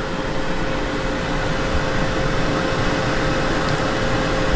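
Steady mechanical whir with a constant hum.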